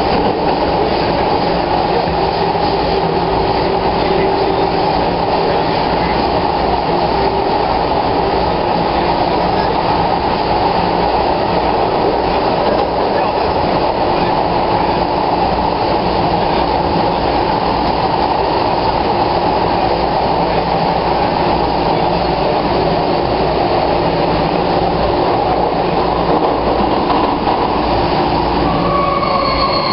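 MTR Kwun Tong Line metro train running underground, heard from inside the car: a steady rumble of wheels and running gear with a faint motor hum. A rising whine comes in near the end.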